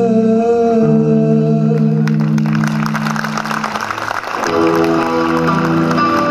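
Live electric guitar with a held note, chords ringing; about two seconds in a burst of audience applause rises over the fading guitar, and from about four and a half seconds new guitar chords ring out.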